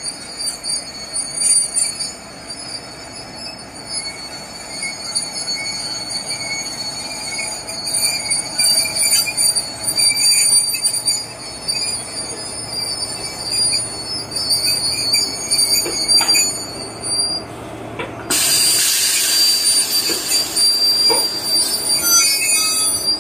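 WAP-4 electric locomotive creeping in to couple onto the coaches, its wheels squealing with a steady high-pitched squeal and a few knocks. About eighteen seconds in, a loud steady hiss starts suddenly.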